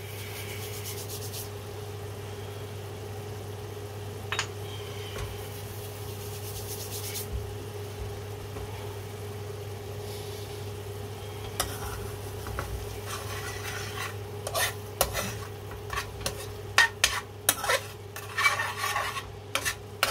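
Dried fenugreek leaves rubbed and crumbled between the palms, a soft rustling, then a wooden spoon stirring thick curry sauce in an aluminium frying pan, scraping and knocking against the pan more and more busily towards the end. A steady low hum runs underneath.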